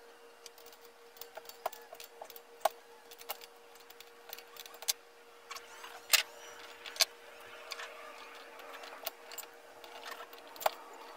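Scattered metal clinks, taps and knocks of wrenches and threaded pipe fittings being handled and tightened on a steel compressor tank, some ringing briefly. A steady faint hum runs beneath.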